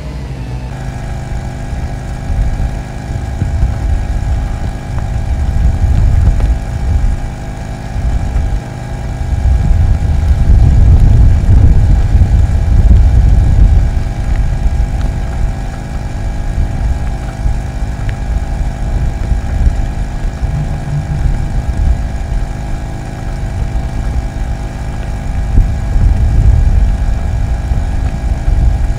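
Compact excavator's diesel engine running steadily as it digs, with a heavy low rumble that swells and fades, loudest for a few seconds near the middle.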